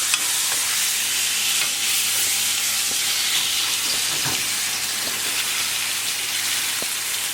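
Spice-coated chicken cutlet, freshly laid in hot oil in a frying pan, sizzling steadily, with a few small pops of spattering oil.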